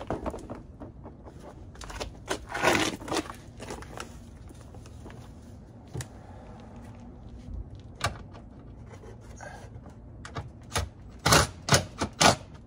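Cordless driver with a 10 mm socket run in short bursts to tighten a mud-flap nut, about two and a half seconds in and again in several quick pulls near the end. Light knocks and scrapes of handling the tool and flap come in between.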